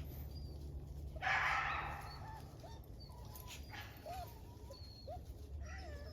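Young puppies whimpering in short, high squeaks that glide up and down, with a brief rustling noise about a second in.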